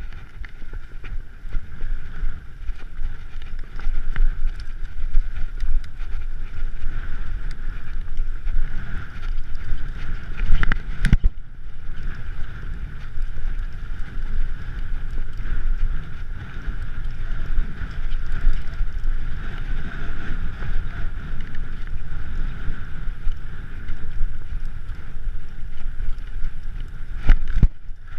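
Bicycle rolling fast over a rough, rocky track, tyres and frame rattling, with wind buffeting the handlebar-mounted microphone. There are two hard knocks from bumps, one about eleven seconds in and one near the end.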